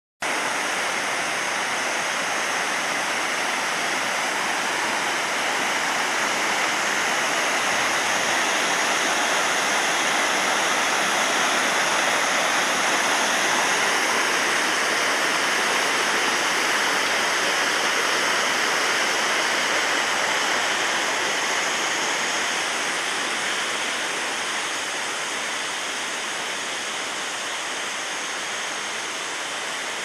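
Waterfall rushing steadily, a dense continuous roar of falling water, easing slightly over the last few seconds.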